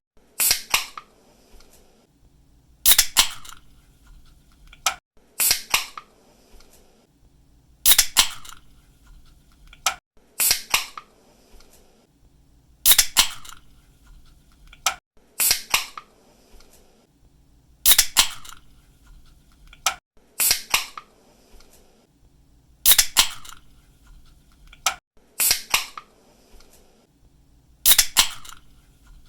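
Aluminium drink can pull-tabs being cracked open again and again: a sharp snap with a short hiss of escaping carbonation, about every two and a half seconds.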